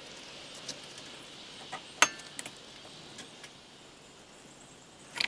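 Steel C-clamp being wound in against a wooden block to compress a brake caliper piston: a few faint, scattered clicks of metal and handling over a low hiss, the sharpest about two seconds in.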